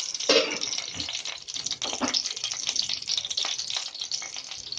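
Tempering sizzling and crackling in hot oil in a kadai: mustard seeds, dried red chillies and freshly added curry leaves frying, with a steady hiss and many small pops.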